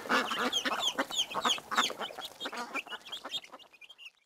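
Baby chick peeping in a quick run of short, high, falling cheeps, about four a second, growing fainter near the end.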